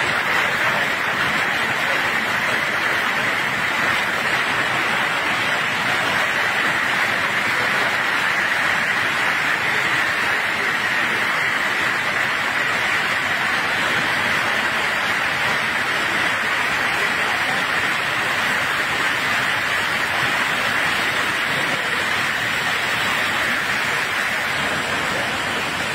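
Heavy rain falling steadily: a loud, even hiss that does not let up.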